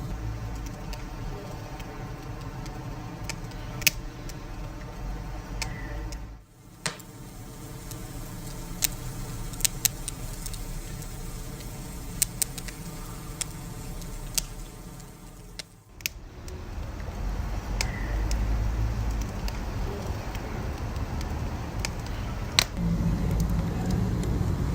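Wood fire burning, with scattered sharp crackles and pops over a steady low rumble of the flames. The sound dips briefly twice, about six and sixteen seconds in.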